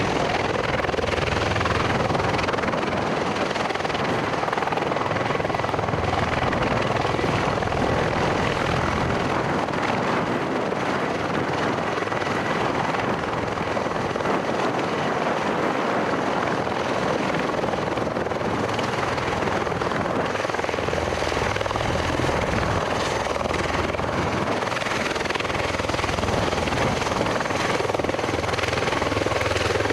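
V-22 Osprey's proprotors and turboshaft engines running steadily, with a pulsing low rotor throb under an even rush of noise, and strong wind on the microphone.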